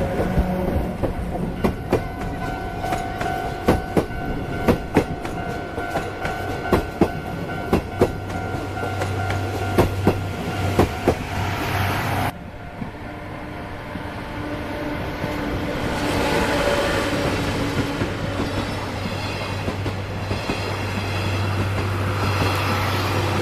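Chichibu Railway Deki 108 electric locomotive with its train running past, wheels clicking over rail joints in an irregular series for about ten seconds. After an abrupt cut, a steady low hum of the running train builds up.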